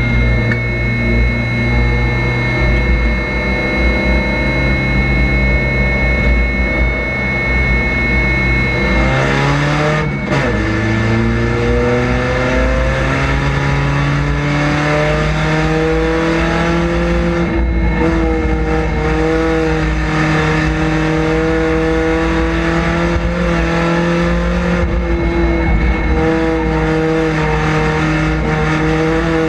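Chevrolet Cavalier street stock race car's engine, heard from inside the cockpit, running hard at steady high revs. About a third of the way in the pitch briefly drops, then climbs back up and holds, rising and falling a little.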